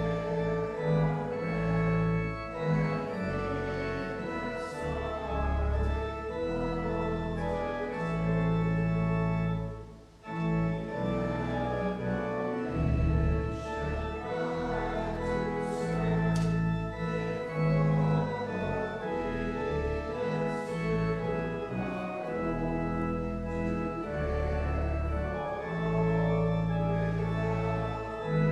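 Church organ playing sustained chords with a strong bass line, with a short break in the music about ten seconds in.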